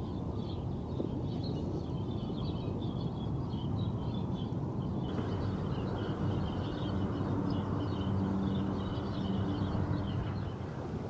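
Outdoor ambience: a steady low rumble with continuous, busy high chirping of birds. About five seconds in, the hiss suddenly gets stronger and a low steady hum comes in.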